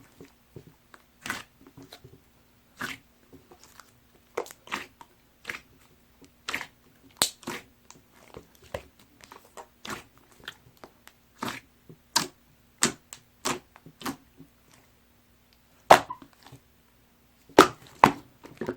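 A large batch of white school-glue slime being squished and poked by hand, giving irregular wet clicks and pops, one or two a second, with the loudest few near the end.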